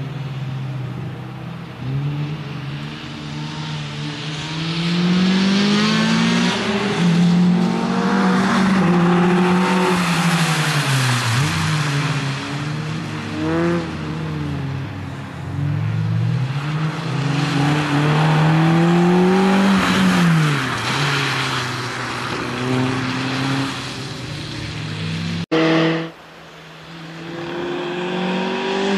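Citroën Saxo VTS 1.6 16-valve four-cylinder engine revving hard, its pitch climbing and falling repeatedly through gear changes and lifts. The sound cuts off abruptly for a moment about 25 seconds in, then returns.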